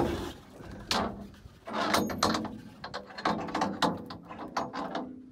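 Knocks and clunks of a boat's engine hatch cover being lifted open, the loudest knock about a second in and a few lighter ones around two to three seconds.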